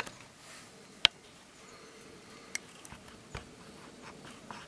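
A few sharp clicks and knocks close to the microphone, irregularly spaced, the loudest about a second in, over a quiet background with faint high chirps.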